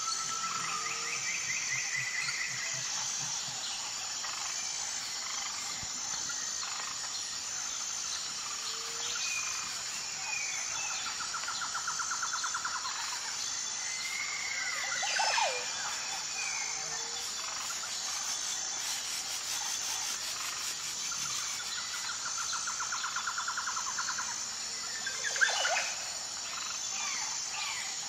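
Forest ambience of birds and insects: a steady high insect drone with a regular pulse, scattered bird chirps, two rapid trills, and a loud sweeping whistle about halfway through and again near the end.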